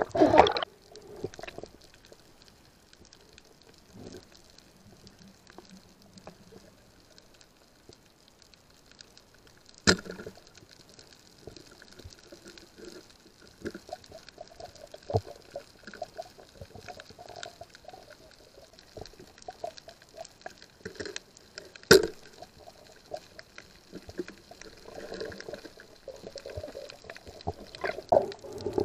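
Underwater sound picked up by a diving camera: faint water movement and scattered small ticks, with two sharp clicks, one about ten seconds in and one a little after twenty seconds.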